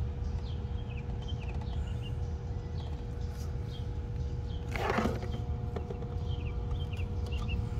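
Oil filter band wrench straining on the oil filter housing cap of a Mercedes straight-six: short high squeaks and chirps recur, with a brief rasping crackle about five seconds in, over a steady low hum.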